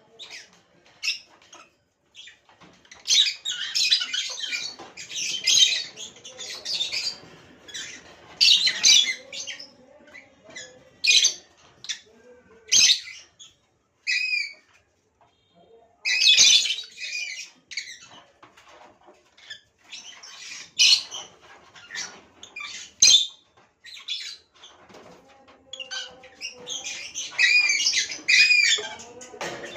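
Pet lovebirds chattering, with shrill squawks and chirps that come in bursts and short pauses between them.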